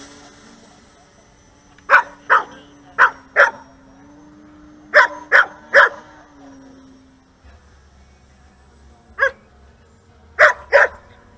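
A dog barking: about ten sharp barks in twos and threes, with pauses of a second or more between the groups.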